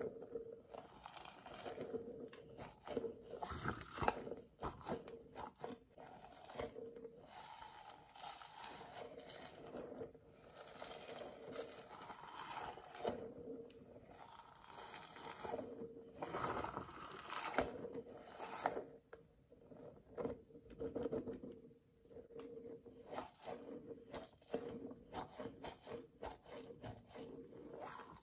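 Clear stringy jelly-rubber stress ball squeezed and torn apart by hand, its sticky rubber crackling and squishing irregularly under the fingers. A faint steady hum sits underneath.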